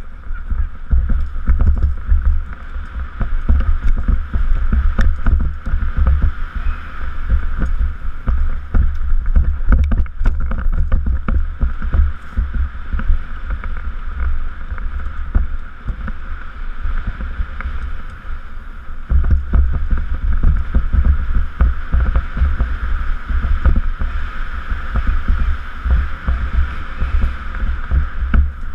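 Wind rumbling on a helmet-mounted camera's microphone at speed, easing for a few seconds past the middle, with frequent clatters and knocks of a downhill mountain bike running over a rough dirt trail.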